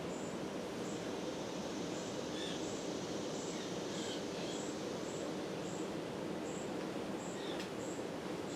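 First-generation Fasco Charleston ceiling fan running on high: a steady whir, with faint high chirps repeating about twice a second.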